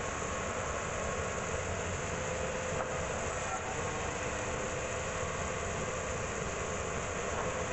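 Band sawmill running steadily, a continuous machine noise with a faint steady whine.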